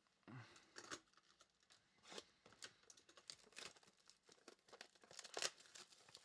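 Trading-card pack wrappers being torn open and crinkled by hand: a string of short rips and rustles, the loudest just before the end.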